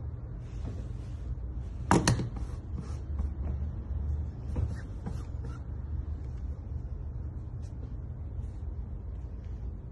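Handling sounds of cloth and tools on a tailor's wooden cutting table: a sharp double knock about two seconds in, and a few fainter knocks and ticks later, over a steady low hum.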